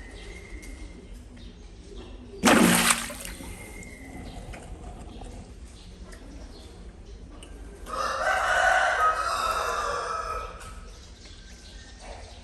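A rooster crowing once, a drawn-out call of about two and a half seconds, past the middle. About two and a half seconds in there is a brief loud rush of noise.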